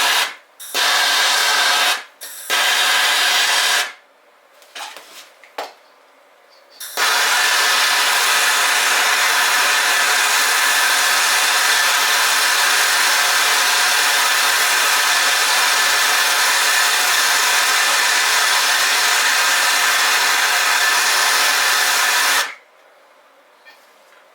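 Handheld gas torch flame hissing as it heats a brass valve body to sweat-solder a copper stub: several short bursts in the first few seconds, then a steady hiss for about fifteen seconds that cuts off suddenly near the end.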